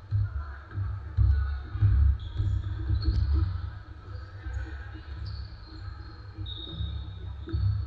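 Basketball play on a hardwood gym court: repeated low thuds of the ball bouncing on the floor, with short high squeaks of sneakers on the boards.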